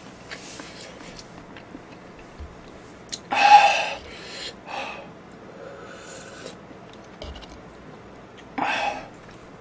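A man slurping and chewing ramen noodles: two short, loud slurps, one about three and a half seconds in and one near the end, with quieter mouth and chewing sounds between them.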